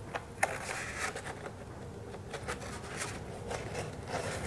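Light rustling of dense packing foam and a few small clicks as the Glowforge Aura's laser head is handled and worked out of its foam insert.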